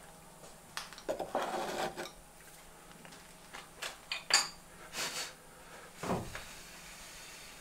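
Light handling noises as a milled polyethylene block is picked up and moved among plastic chips on a machine vise: a brief rubbing scrape, then several sharp clicks and a duller knock near the end.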